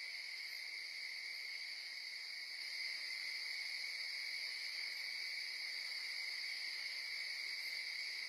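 A steady chorus of night insects, a continuous high trill with no breaks, over faint background hiss. It grows slightly louder about three seconds in.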